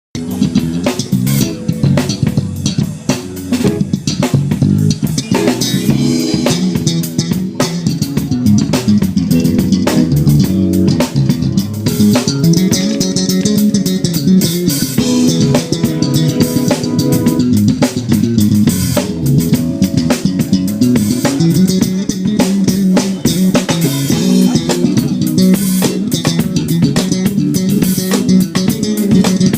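Live band playing instrumental rock at a sound check: electric bass, guitar and drum kit, with no singing.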